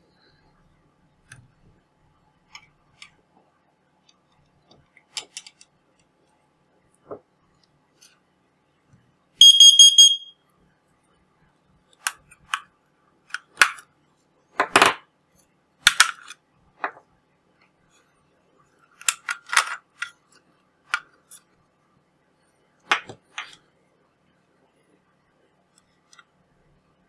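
Carbon monoxide alarm's piezo buzzer gives one loud, high-pitched beep lasting about a second, roughly ten seconds in. Short clicks and scrapes come before and after it as the alarm's plastic case is pried open.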